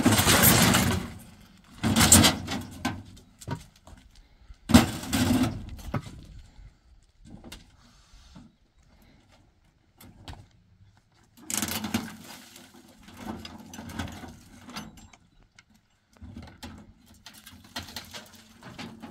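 Hollow concrete blocks scraping across a metal pickup bed and knocking as they are set down, in separate bouts a couple of seconds apart. The bout about five seconds in opens with a sharp knock, and there is a quieter stretch before another bout about twelve seconds in.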